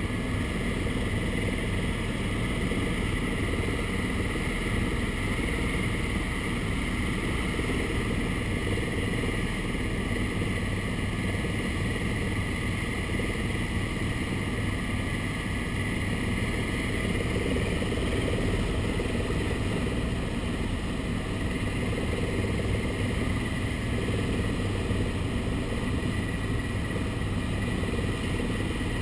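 Steady drone of a helicopter in flight heard from inside the cabin: engine and rotor noise with a constant high whine over a low hum.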